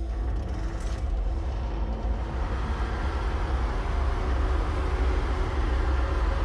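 Cinematic sound design from a drama clip: a deep steady rumble, joined about two seconds in by a swelling noisy roar.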